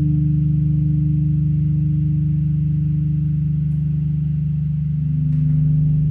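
Electronic music played live from a laptop and controller: a steady low synthesizer drone of held tones with a slight even pulse, and a new tone joining about five seconds in.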